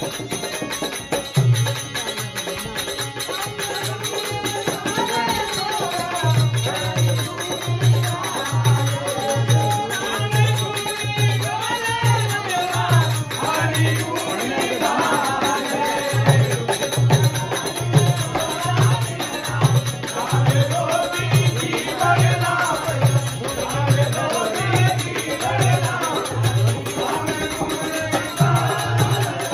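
Devotional bhajan being sung to harmonium accompaniment, with a steady low drum beat of about one and a half beats a second and jingling percussion. The singing comes in a few seconds in, and the drum beat drops out briefly in the middle.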